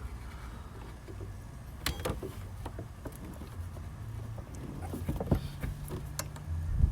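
A greased wiper linkage ball-socket joint on a 2017 Ford Transit being pressed back onto its pivot by hand: a few scattered clicks and knocks of parts being handled, then a louder thump near the end as the joint snaps down into place.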